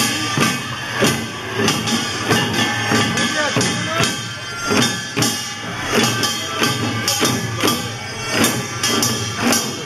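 Korean pungmul percussion band playing: many buk barrel drums beaten together in a steady rhythm, with metal gongs ringing above them.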